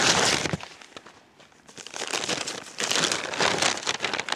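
A padded paper mailing envelope being torn open and handled: a burst of tearing and crinkling paper, a lull of about a second, then more crinkling and rustling of the torn paper.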